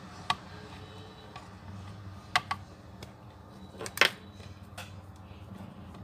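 A few light clicks and taps from the opened plastic phone and a multimeter test probe being handled and set down: one just after the start, two close together about two and a half seconds in, and the loudest about four seconds in, over a faint low hum.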